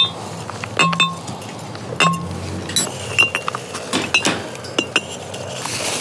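Empty glass bottles clinking against one another as they are laid into a bag, a string of sharp clinks with brief ringing.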